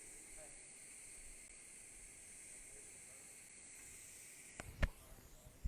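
TIG welding arc on a duplex stainless steel pipe root pass, a steady quiet hiss. The hiss fades about four and a half seconds in, and a sharp knock follows, with a smaller one near the end.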